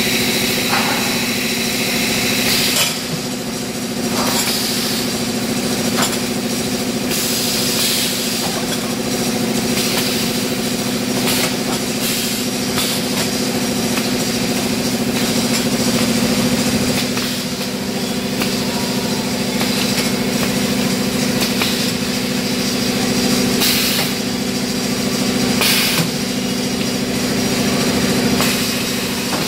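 Automatic pneumatic PVC pipe bending machine running, a steady machine hum with occasional sharp knocks and clatter from its moving parts and pipes.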